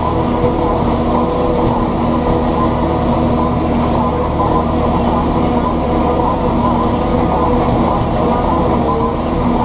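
John Deere 7710 tractor's six-cylinder diesel running steadily at constant revs, a loud, even drone.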